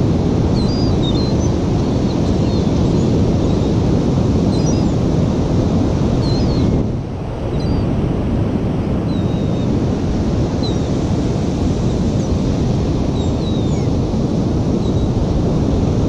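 Strong wind buffeting the microphone over breaking ocean surf, easing briefly about seven seconds in. Gulls circling overhead give scattered short, high calls throughout.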